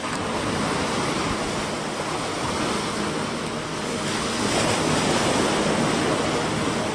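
Sea waves breaking, a steady rush of surf that swells louder about four to five seconds in.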